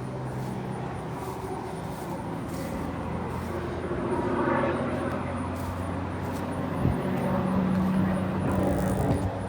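Airplane passing overhead: a steady distant rumble that swells somewhat from about four seconds in.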